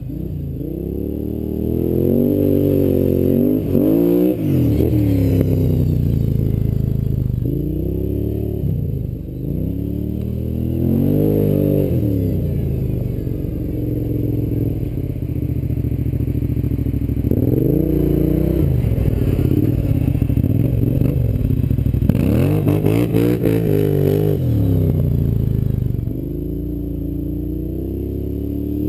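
Kawasaki KFX700 ATV's V-twin engine through an aftermarket Muzzy Super Pro exhaust, revving up and backing off again and again under riding. A spell of rattling clatter comes about three quarters of the way through.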